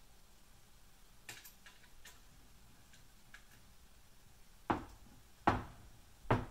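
Small clicks and knocks of metal CNC kit parts being handled and fitted together: a few faint ticks, then three sharp clicks about a second apart near the end.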